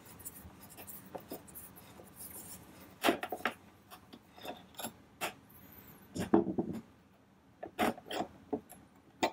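Screwdriver scraping as it backs a screw out of a snow shovel's plastic belt housing, then a handful of short clicks and clunks as the metal belt-tensioner bracket is worked loose and lifted off, the heaviest clunk a little after the middle.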